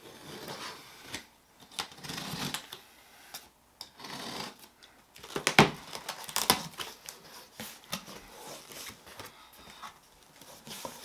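Cardboard shipping box being opened by hand: packing tape pulled off and cardboard flaps rustling, scraping and folding back, with a couple of sharp snaps a little past halfway.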